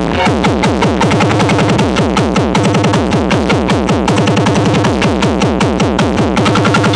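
Electronic dance music played loud through a column of sound-system horn loudspeakers: a fast stream of falling synth sweeps over a steady low beat.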